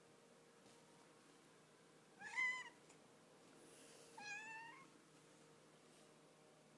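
Domestic cat meowing twice: a sharp call that rises and then falls, followed a couple of seconds later by a second, quieter one. These are the sharp cries the cat uses to demand that the fetched hair tie be thrown again.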